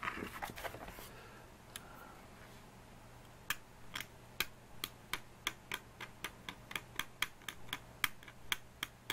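Craft-knife blade scraping dried watercolour off heavy watercolour paper to lift the blue sky paint from the mountain's edge, in short sharp strokes about two to three a second that start about three seconds in.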